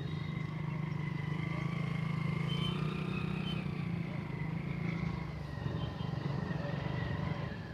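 Small motorcycle engine running at low speed as the bike is ridden slowly around a tight circle, a steady low drone with a thin higher tone wavering above it.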